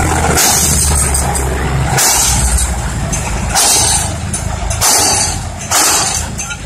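Diesel engine of a ten-wheel dump truck running as the truck lowers its tipped bed and pulls away over dirt. Five or so short rushes of higher noise come through at intervals of a second or more.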